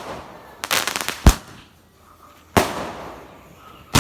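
Fireworks going off. About two-thirds of a second in, a quick run of crackling pops is followed by a sharp bang. Past halfway comes another bang with a trailing echo.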